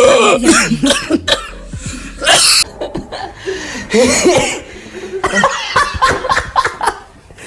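A person coughing repeatedly in short, separate fits, with laughter mixed in.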